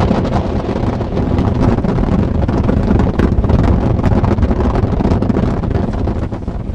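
Strong wind buffeting the microphone: a loud, rumbling, gusty roar that eases slightly near the end.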